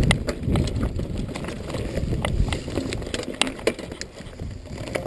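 Norco Storm hardtail mountain bike riding down a rough, rocky trail: a steady low rumble from the tyres and frame, with frequent sharp clicks and knocks as the bike rattles over rocks.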